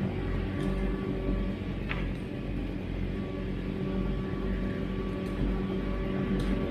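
A 20,000-pound excavator's diesel engine running steadily under work, with a few faint knocks or clanks from the machine.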